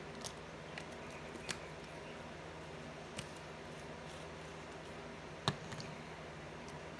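A few light clicks and taps as a glass spice jar and measuring spoon are handled over a bowl, the loudest about five and a half seconds in, when the jar is set down on the counter. A steady low hum runs underneath.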